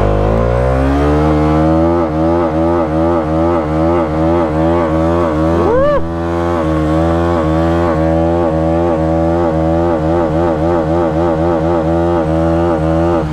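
Bajaj Dominar 400's single-cylinder engine revved up and held at high revs in a burnout, the rear tyre spinning on the spot. The revs climb over the first second, then hold with a steady, regular pulsing, and a short rising squeal cuts in about six seconds in.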